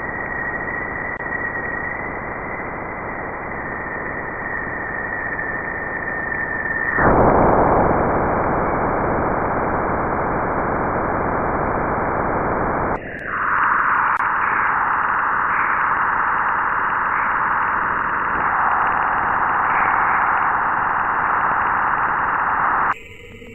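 A steady, static-like hiss offered as the sound of a planet in space, a space recording turned into audio. A faint high tone sits over it at first. The hiss changes character abruptly about seven seconds in and again about thirteen seconds in, then cuts off near the end.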